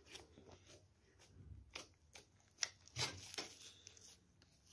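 Fluffy slime being pressed flat and stretched by hand on a table, giving faint squishing with scattered small clicks and crackles, a few sharper ones near the middle.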